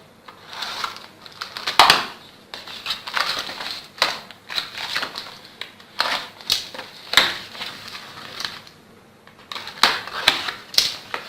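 Product packaging being handled and opened by hand: irregular crinkling and rustling with sharp clicks.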